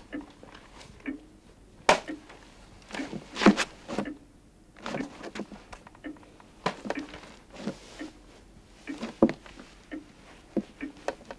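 Irregular footsteps and knocks on a wooden floor, with small clicks and clatter of objects being handled.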